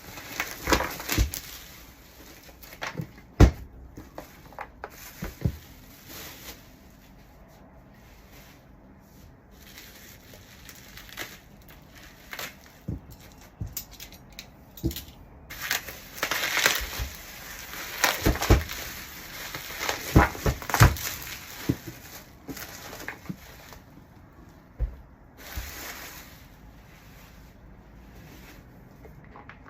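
Parcel being unboxed and its contents handled: irregular knocks and taps with bursts of crinkling and rustling packaging.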